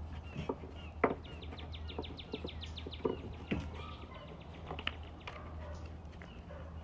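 A small bird chirping: short falling chirps, with a fast rapid run of them from about a second in to about four seconds, plus a few sharp clicks, over a steady low hum.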